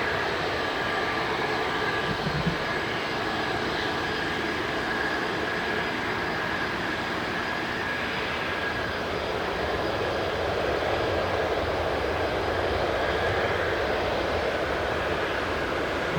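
Jet airliner's engines running steadily with a thin high whine over a broad rush, growing a little louder about ten seconds in.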